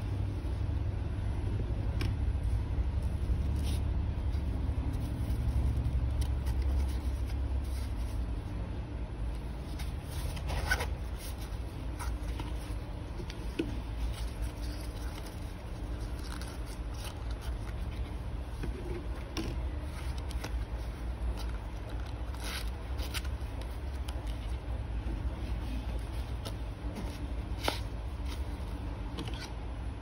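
Small fabric coin pouch with waterproof zippers being handled: the zipper pulled, and a banknote and plastic cards scraping and clicking as they slide in and out of its pockets. A steady low rumble runs underneath.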